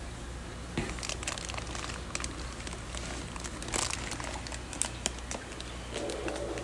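Plastic fish shipping bags full of water crinkling as they are handled in a cardboard box and one is lifted out: a run of short crackles starting about a second in, over a steady low hum.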